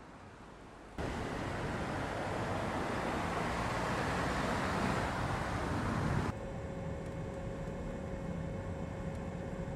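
Mercedes-Benz E 350 e plug-in hybrid sedan being driven. A low hush for about a second cuts suddenly to loud tyre and wind noise. A little after halfway it drops to a steadier, quieter running sound with a faint steady hum.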